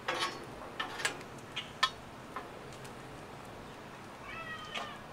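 Stainless steel griddle spatulas clinking and scraping on the Blackstone griddle's steel top, a few sharp clicks in the first two seconds, over a faint sizzle of hot bacon grease. About four and a half seconds in there is a short squeaky tone.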